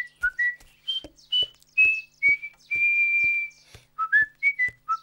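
A cartoon character whistling a carefree tune in short notes, with one long held note about three seconds in. A sharp tap lands on each note, about two to three a second, like strolling cartoon footsteps.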